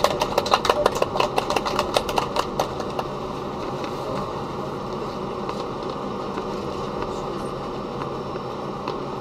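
Inside the cabin of an Ilyushin Il-96-300 rolling out after landing, the wheels knock over the joints of the concrete-slab runway, about four knocks a second, thinning out and stopping about three seconds in. Under them runs the steady rush of the PS-90A turbofans and the rolling airliner.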